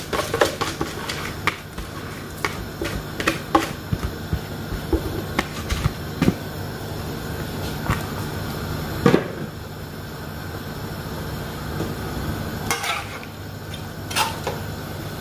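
Scattered knocks and taps against an aluminium cooking pot of boiling stock as basmati rice is tipped in from a plastic bowl, then a metal slotted turner knocking and scraping in the pot near the end. A steady low hum runs underneath.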